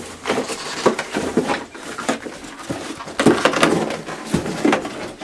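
Irregular rustling, scraping and knocking of cardboard and paper as a coyote noses and paws into a box toy to get at the mice hidden inside.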